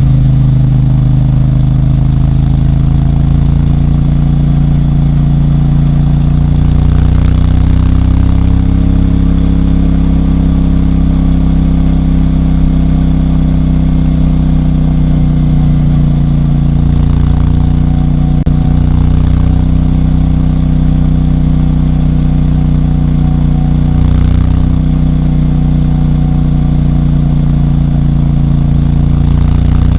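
CFMOTO 450MT's parallel-twin engine running at a fairly steady speed, with slight changes in engine speed now and then.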